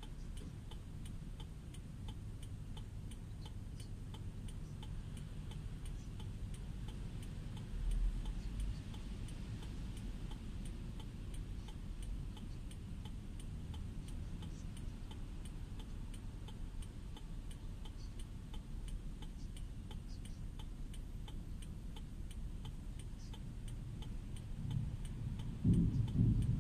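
Car turn-signal indicator ticking steadily inside the cabin, about one and a half ticks a second, over a low rumble. The low rumble grows louder near the end.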